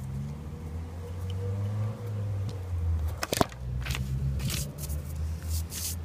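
Phone being handled and swung around, with a low rumble, a sharp click about three seconds in, and brief rustles near the end.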